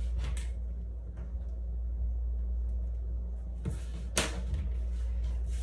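A few light clicks and taps as a pencil and small drawing tools are handled on a desk, the sharpest click about four seconds in, over a steady low hum.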